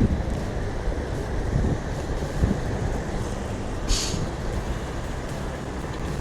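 Wind rumbling on the microphone, uneven and low, with a brief hiss about four seconds in.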